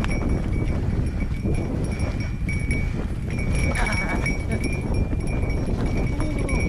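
Mountain bike rolling over a dirt trail: a steady, loud rumble and rattle from the tyres and bike, with a thin high ringing that comes and goes.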